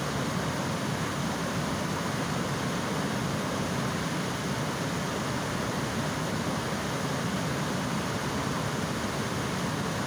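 Reservoir water overflowing a dam: a steady, unbroken rush of falling water.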